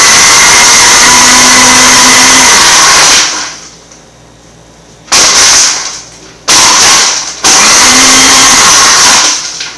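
Countertop blender running loud at full speed. It cuts off about three seconds in, then is switched on again in three short bursts, the last one the longest.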